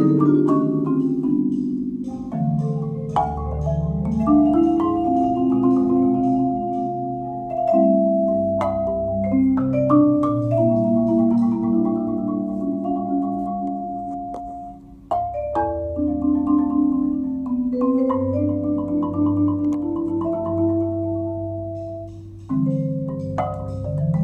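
Jazz played on a tuned mallet keyboard instrument: chords and melody lines struck with mallets, the notes ringing on. The playing thins out briefly twice, about fifteen and twenty-two seconds in, before picking up again.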